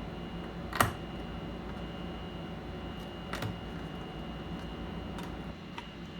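A few sharp clicks and taps of hard objects being handled, the loudest about a second in and softer ones later, over a steady hum with a faint constant high tone.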